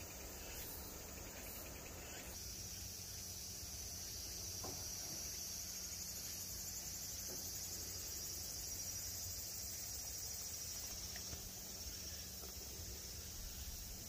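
A steady chorus of insects, a continuous high-pitched buzz that keeps on without a break.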